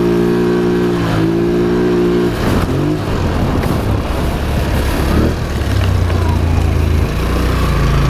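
Polaris Sportsman XP 1000 S ATV's parallel-twin engine running while riding. It holds a steady note, changes pitch quickly about two and a half seconds in, turns noisier for a couple of seconds, then settles to a steady lower note near the end.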